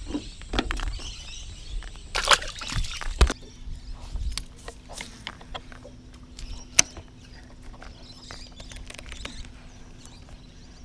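A fish let go over the side of the boat splashes into the water about two seconds in. Scattered handling clicks follow, with a faint steady hum underneath.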